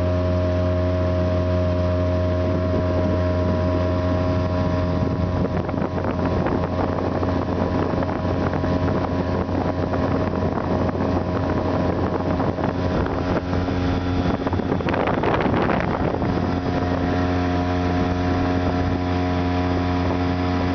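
Outboard motor running steadily at cruising speed, pushing an inflatable boat along, with water rushing past the hull and wind on the microphone. A brief louder rush of noise comes about fifteen seconds in.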